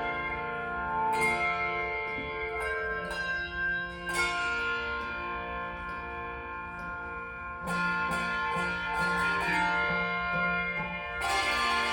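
Handbells ringing a piece of music: chords of clear, sustained bell tones struck and left to ring, with fresh strikes every few seconds and a fuller chord near the end.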